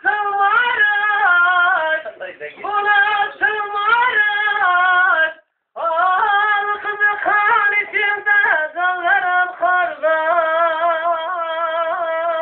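Kurdish folk song: a single high, ornamented melody line with a wavering pitch. It stops briefly about five and a half seconds in, then goes on.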